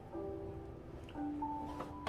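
Soft, slow instrumental music of long held notes, with a faint click or two near the end.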